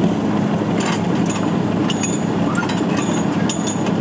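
Diesel locomotive engine idling steadily, with a few short, high clinks over it.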